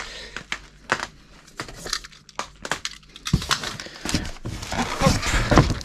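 Aluminium drink cans being handled and lifted out of a cardboard box: a string of short knocks and clinks with cardboard and plastic wrap rustling. It is busiest and loudest in the second half.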